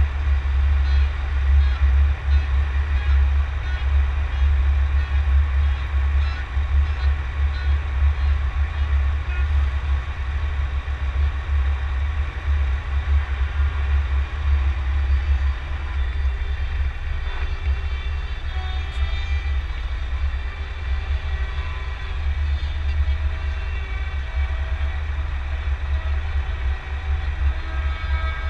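Scania truck driving at speed, heard from a camera on its bonnet: a steady low rumble of engine and wind. From about halfway, faint broken tones come in above it.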